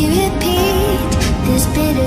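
Background music: a pop song with a wavering melodic line over a dense backing.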